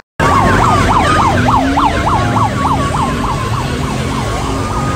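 A siren in a fast yelp, its pitch sweeping up and down several times a second, over loud, noisy street sound; after about three seconds the sweeps fade into a steadier tone.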